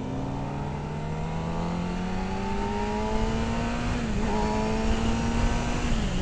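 Kawasaki sport bike engine under way, its note rising slowly as it accelerates, dipping briefly about four seconds in and again near the end, over steady wind rush.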